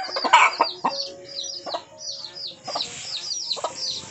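Native chickens clucking in a backyard, with a rapid run of short, high, falling chirps, several a second, throughout and a louder cluck about half a second in.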